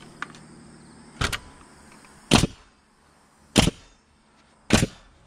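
Pneumatic coil nailer firing four nails into a timber beam, one sharp bang about every second and a bit.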